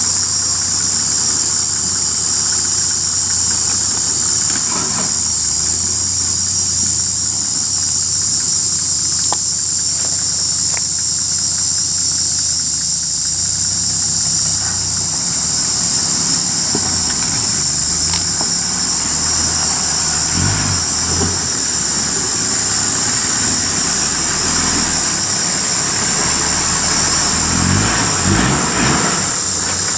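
Toyota Landcruiser 80 Series 4.2-litre turbo-diesel engine working at low revs, rising and falling as it crawls over deep ruts on a climb that it struggles with. A steady, loud insect drone sits high above it.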